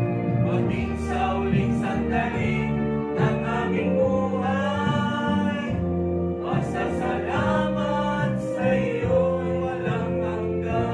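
A small mixed group of men's, women's and boys' voices singing a Filipino gospel song together in harmony, over steady held notes of accompaniment.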